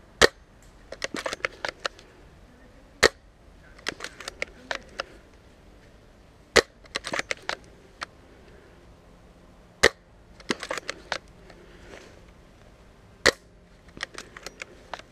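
Airsoft sniper rifle firing five single shots about three seconds apart, each sharp report followed a second later by a quick run of clicks as the bolt is cycled for the next shot.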